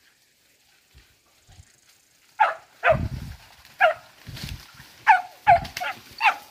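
Hunting dog barking in short, sharp barks, about eight in a row, each dropping in pitch. They start a couple of seconds in, after a near-quiet stretch.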